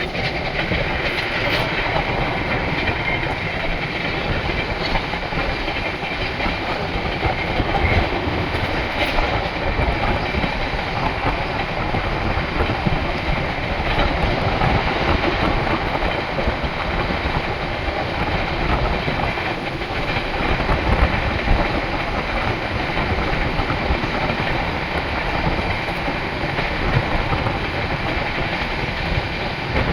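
Dakshin Express passenger train running along the track: a steady rumble and rattle of wheels on rails.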